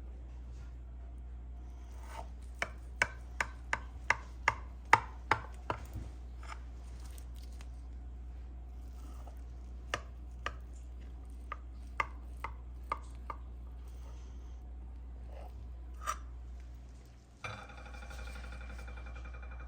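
Kitchen knife chopping on a cutting board: a quick run of about a dozen strokes, roughly three a second, then slower, scattered cuts.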